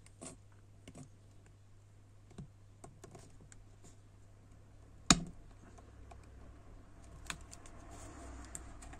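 Small clicks and taps of a hand crimping tool being worked on a wire terminal, with one sharp snap about five seconds in as the jaws crimp the terminal down onto the wire.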